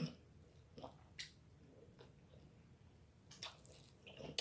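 Faint chewing while eating seafood-boil food, with a few soft mouth clicks and smacks.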